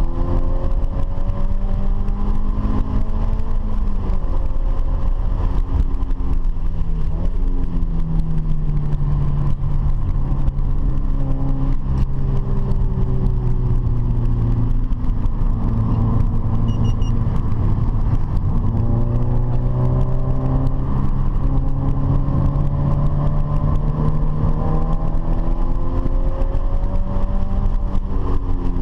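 Car engine running hard on a track, its pitch rising and falling repeatedly with throttle and gear changes, over steady low road noise.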